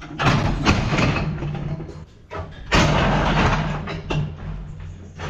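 Steel cattle crush clanging as a calf shifts inside it and is let out: two loud bangs about two and a half seconds apart, each ringing on and dying away.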